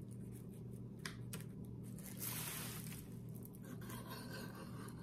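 Faint handling sounds as a wet paint-poured canvas is tilted on plastic sheeting: light crinkling and rustling with a couple of small taps about a second in, over a steady low hum.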